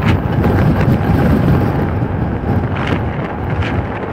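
Strong gusting wind buffeting the microphone, a loud low rumbling noise, easing slightly near the end.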